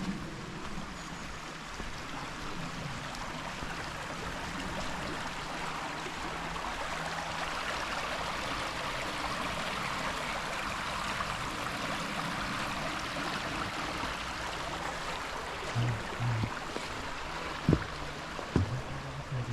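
Stream water running steadily, swelling a little towards the middle. A couple of short knocks near the end.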